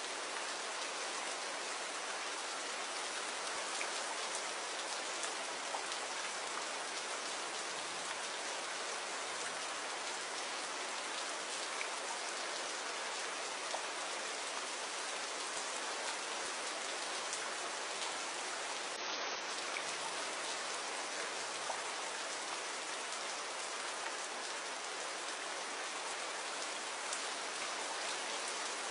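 Steady rain falling, a dense even hiss of drops with fine patter throughout.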